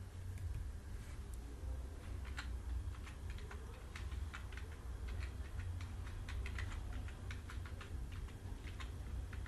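Computer keyboard being typed on: irregular key clicks as a short sentence is entered, over a steady low hum.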